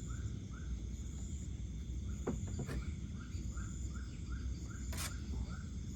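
Night insects chirping by a river: a short call repeats a couple of times a second over a steady high buzz and a low background hiss, with a few faint clicks.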